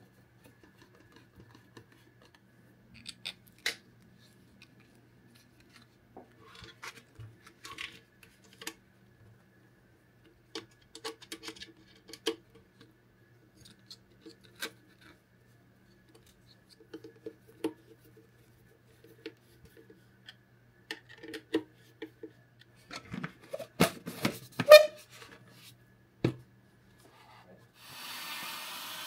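A hand screwdriver driving self-tapping screws into 3D-printed plastic parts, with scattered clicks, creaks and clunks as the parts are handled; the loudest knocks come about 24 seconds in. Near the end a small handheld-vacuum motor starts and runs steadily.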